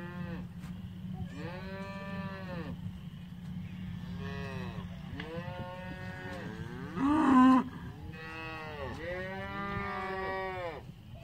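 Black beef cattle mooing: about five long calls one after another, each rising and then falling in pitch. A shorter, louder bawl comes about seven seconds in.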